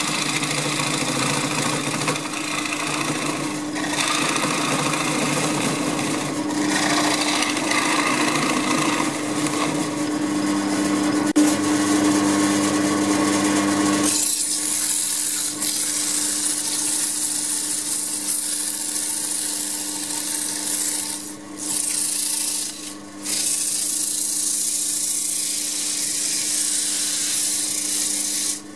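Record Power wood lathe running with a steady motor hum while a bowl spins on it. For the first half the spinning wood is being worked; from about halfway, abrasive paper held against the spinning bowl gives a steady hiss, briefly broken twice near the end.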